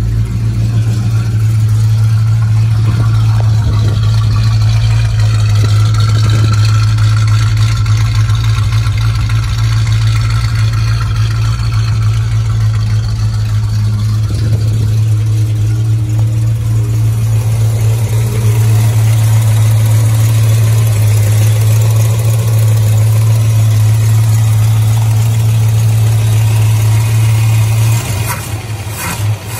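Rebuilt small-block V8 of a 1965 Plymouth Barracuda idling steadily after a cold start. Near the end the sound drops and becomes uneven.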